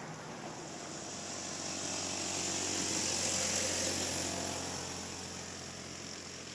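A road vehicle passing by: a hiss of tyres and motor swells to a peak about three and a half seconds in, then fades as it moves away, over a steady low hum.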